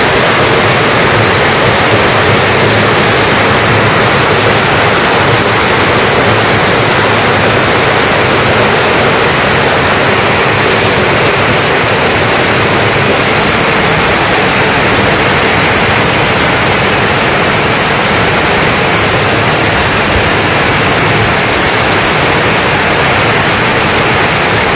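Very heavy monsoon rain in a loud, steady downpour on corrugated tin roofs and foliage, with runoff streaming off the roof edges.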